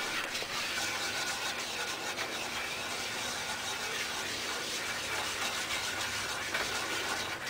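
Butter and flour cooking in a nonstick saucepan, a steady sizzling hiss, while a whisk stirs through the mixture with light scraping strokes. This is the flour being cooked in butter as the base of a roux for a cheese sauce.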